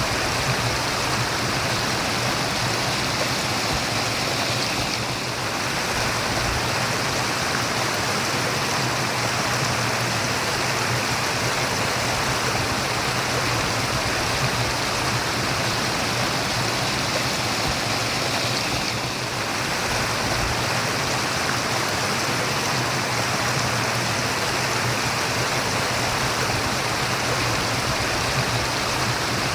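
A stream of water running and murmuring steadily, an even rushing wash with two brief slight dips in level.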